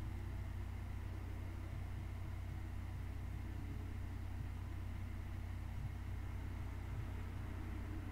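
A steady low mechanical hum with faint high tones over it, unchanging throughout.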